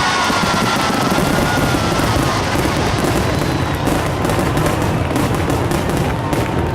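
Fireworks barrage: a dense, continuous run of rapid bangs and crackling with no break.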